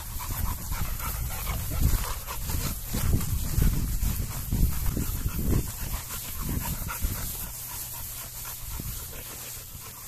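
American bulldog panting, in uneven rhythmic puffs over a low, uneven rumble.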